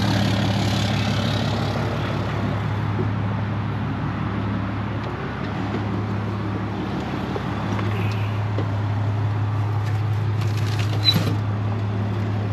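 Diesel engine idling steadily, a low hum that fades for a couple of seconds around the middle and comes back. A short click near the end.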